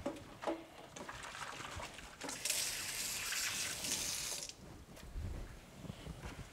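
Kitchen tap running for about two seconds, starting and stopping abruptly near the middle, with a few faint knocks around it.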